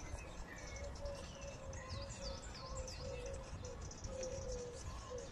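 Small birds chirping in short, falling calls, over a low, wavering whine from an RC scale crawler's electric motor and gears as it climbs a steep slope.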